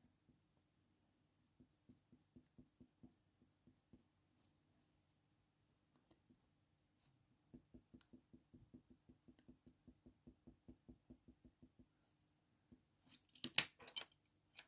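Faint rhythmic scratching of a coloured pencil shading on hot-press watercolour paper. A few light strokes at first, then a steady run of about five strokes a second from around halfway, with a few louder scratches near the end.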